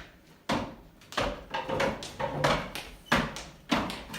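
Footsteps landing hard on a floor in a steady rhythm, a thud about every half second or so.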